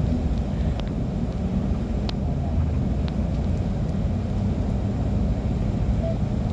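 Steady low rumble of a moving bus, heard from inside: engine and road noise, with a few faint clicks.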